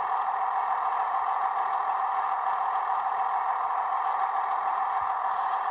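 Steady idling hum of a sound-fitted Class 158 model DMU's DCC sound decoder, playing diesel idle through its small on-board speaker. The sound is thin and mid-pitched, with a faint steady tone, and holds steady without change.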